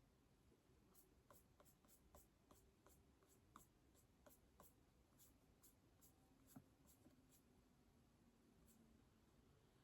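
Faint keyboard typing: separate key clicks at an uneven pace of about two or three a second, stopping about seven seconds in, with one more keystroke near the end.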